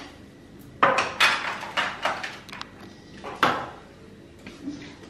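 Small hard items being set down one at a time on a countertop: several sharp clacks and knocks spread over the first three and a half seconds, the loudest about a second in.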